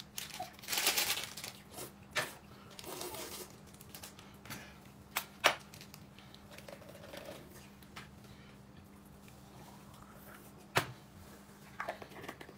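Scattered handling noises: a brief rustling, crinkling burst about a second in, then a few sharp clicks and taps spread out over the rest.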